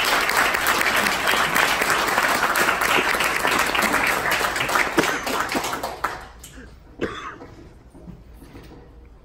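Audience applauding in a room, dense clapping that dies away about six seconds in, leaving a few scattered sounds.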